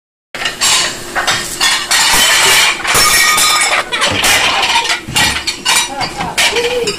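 Dishes, glasses and cutlery clattering and clinking in a quick, dense, irregular run, as plates and ware are handled fast at a restaurant dishwashing station.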